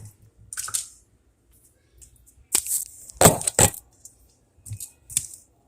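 Eating sounds: a handful of short clicks and smacks, the busiest stretch a little past the middle.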